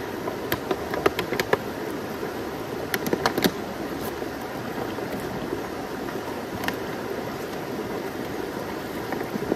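Steady rush of a flowing mountain stream. A few sharp clicks and knocks come in the first few seconds and once more later, as a plastic bottle is handled and rinsed in the water.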